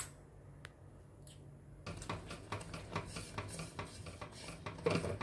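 A spatula stirring melting jaggery syrup in a pan: a sharp tap at the start, then from about two seconds in a steady run of scraping and rubbing against the pan.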